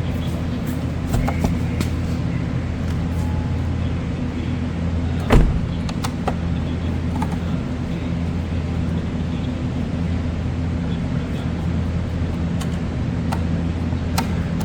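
Steady low mechanical hum, with scattered light clicks and one sharp knock about five seconds in, from parts and tools being handled during work on the door and mirror.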